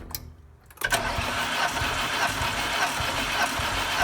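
VAZ-21099 four-cylinder engine cranked over by its starter motor with the spark plugs out, not firing, during a compression test on the second cylinder. The starter engages with a click just under a second in, then spins the engine steadily with a faint regular beat.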